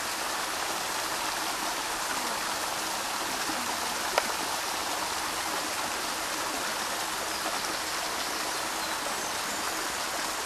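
Steady rushing hiss of running water at an even level, with a faint click about four seconds in.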